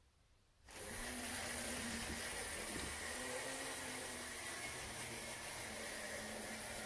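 LEGO yellow wind-up motor brick whirring steadily as its spring unwinds and drives the truck along the plastic track. It starts suddenly, just under a second in, when the truck is let go.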